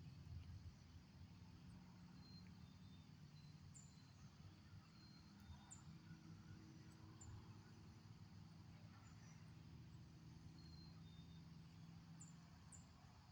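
Near silence: faint outdoor ambience with a low rumble and scattered brief, faint high-pitched chirps.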